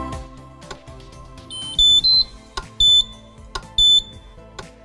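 Electronic beeps from a Free Swing E lift-up fitting's drive unit as its programming button is pressed, signalling the programming menu. About one and a half seconds in comes a short run of beeps stepping up in pitch, then two single beeps about a second apart.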